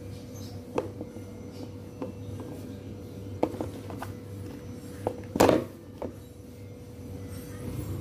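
Plastic food storage containers being handled while paper towel sheets are laid into them: light taps and clicks of plastic, with one louder crinkling rustle about five and a half seconds in, over a steady low hum.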